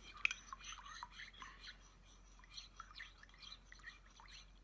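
Metal spoon stirring coffee in a ceramic mug, clinking and scraping against the inside in quick, irregular taps, with a brief lull about halfway through.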